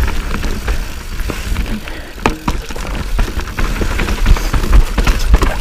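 Specialized Enduro mountain bike descending a dirt forest trail: tyres rolling over dirt and roots while the bike rattles with many sharp knocks over the bumps. Heavy wind rumble on the bike-mounted camera's microphone.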